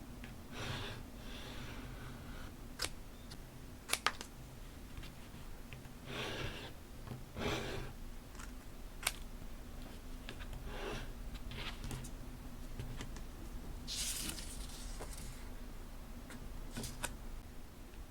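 Paper and stationery being handled: several short rustles and slides of paper, with a few sharp clicks and taps in between.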